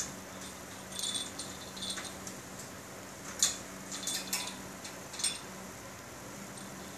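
Light metallic clinks and rattles as a Persian cat shifts and paws on the top of a wire cage, about half a dozen short ones spread irregularly, the sharpest near the middle.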